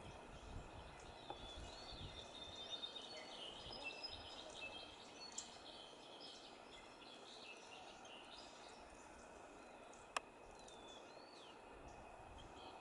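Quiet outdoor ambience with short, twisting bird chirps, a cluster in the first half and a couple more near the end, over a faint steady high tone. One sharp click about ten seconds in.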